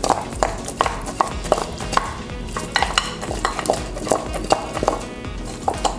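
Raw, seasoned skinless chicken drumsticks tossed by hand in a glass bowl, with short knocks as the pieces hit each other and the bowl, over background music.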